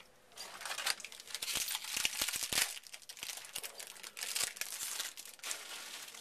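A foil card-pack wrapper from a Topps jumbo football box being crinkled and torn open, with a few sharp clicks about two seconds in.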